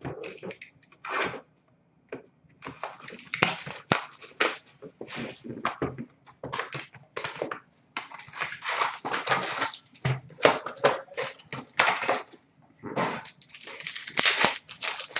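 Hockey card pack wrappers crinkling and tearing as packs are ripped open, with cards handled. The rustling comes in irregular bursts with short pauses and is densest near the end.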